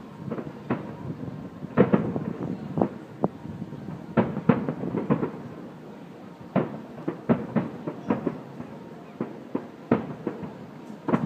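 Fireworks display: an irregular series of bangs from bursting aerial shells, each followed by an echoing rumble, with the loudest about two, four and a half and six and a half seconds in.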